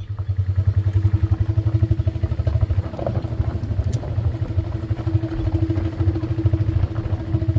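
Small engine running with a steady, rapid pulsing beat, starting up abruptly at the outset.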